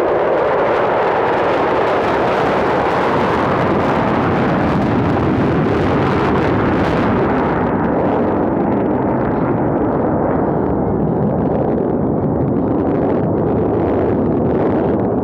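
Three F/A-18 Super Hornet jets passing in afterburner, six engines making a loud, steady thunder. The hiss in the upper range thins out about eight seconds in as the jets pull away.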